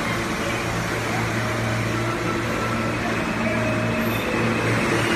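New York City subway train of R160 cars pulling out of an underground station and gathering speed: a steady rumble and hum from the traction motors, with short whining tones at several pitches. It grows slightly louder as the train gets moving.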